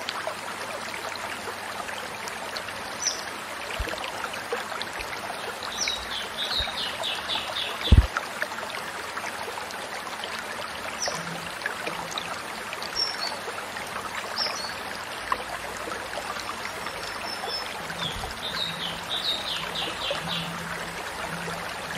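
Steady trickle of a running stream, with short high bird calls now and then and a quick rattling trill heard twice. A single sharp thump about a third of the way in.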